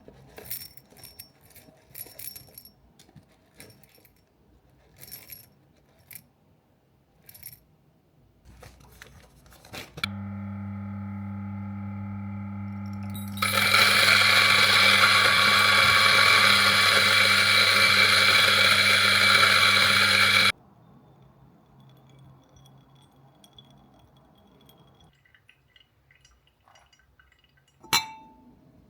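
Small clinks of cups and utensils, then an electric coffee machine switches on with a steady hum. About three seconds later it turns into a loud, rough hiss that runs for about seven seconds and cuts off suddenly. A single sharp click comes near the end.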